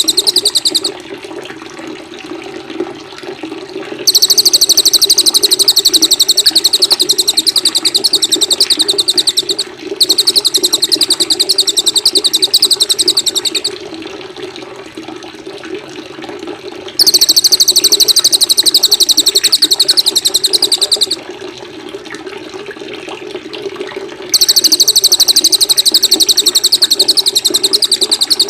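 A small songbird's very fast, high-pitched trill, given in bursts of several seconds with short pauses between, over a steady sound of running water.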